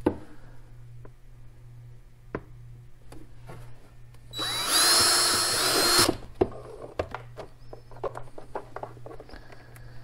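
DeWalt cordless drill with a 1-1/4-inch hole saw boring through the side of a plastic battery box in one short burst of under two seconds, about halfway through, its whine rising as it spins up. Light clicks and handling knocks before and after.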